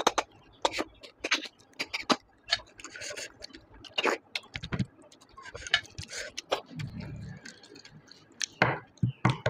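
Close-up eating sounds of a person sucking snail meat out of the shells of a snail curry. Short wet slurps, lip smacks and mouth clicks come one after another.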